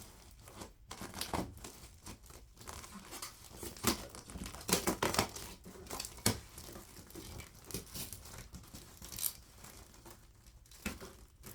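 Packing tape and shipping packaging being ripped open by hand, with irregular tearing and crinkling rustles.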